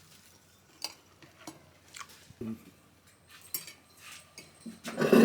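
Scattered light clinks and clacks of dishes and cutlery as food is served, with a louder burst of sound right at the end.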